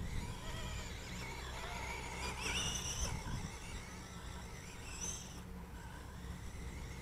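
Small electric motor of a 9115 RC monster truck whining, its pitch rising and falling with the throttle, loudest about two and a half seconds in, over a steady low rumble.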